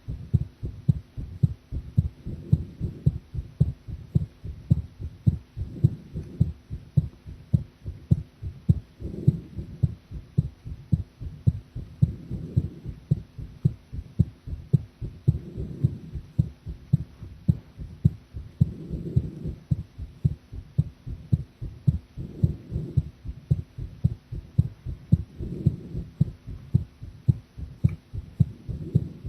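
A woman's heartbeat picked up at the chest: steady, regular low lub-dub thumps, with a soft swell of noise about every three seconds. The uploader describes her heartbeat during this recording as unsteady.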